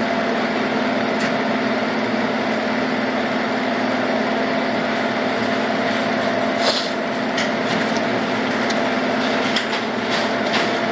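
Steady hum of a car idling, heard from inside the cabin, with a constant low drone. A few brief papery rustles come about two-thirds of the way in and again near the end.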